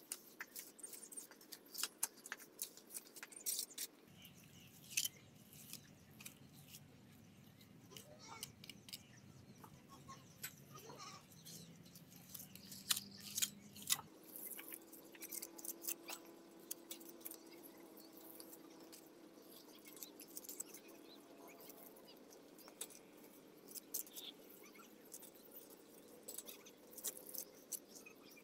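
Faint, irregular clicks and scrapes of a steel trowel and hands spreading wet cement mortar over brickwork.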